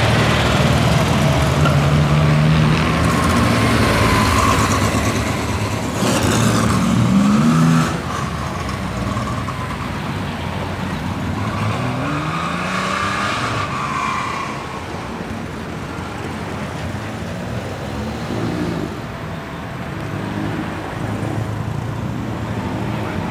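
Classic race car engines revving as the cars accelerate past one after another, each engine note climbing in pitch as it pulls away. Loudest in the first eight seconds, then quieter and more distant.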